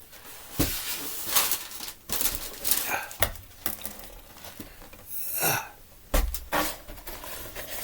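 Handling noises of a BB gun and its small parts: scattered clicks, light knocks and rustling, with a brief swish about five seconds in and a heavier knock just after six seconds.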